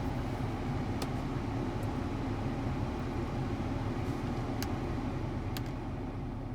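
Volvo XC90 cabin blower fan, a used replacement unit, running steadily and blowing air through the vents with no chirp: the new fan runs quietly. A few faint ticks sound over the steady rush.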